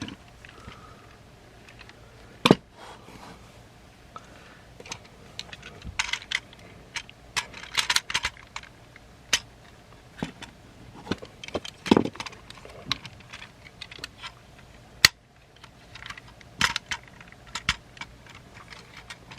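Hard plastic toy parts clicking and rattling as pieces of a Transformers figure and its upgrade kit are handled and pegged together, with a few sharper snaps.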